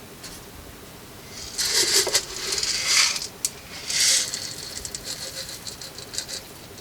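Grain kernels poured into the metal hopper of a hand-cranked grain mill, rattling in three short pours in the first half, then a few light ticks as the kernels settle.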